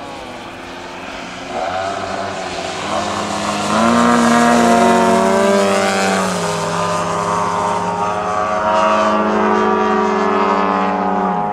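Propeller engines of two RC aerobatic model airplanes flying together, getting louder as one makes a low pass about four seconds in, its pitch dropping as it goes by; the engines keep running loudly as the planes climb away.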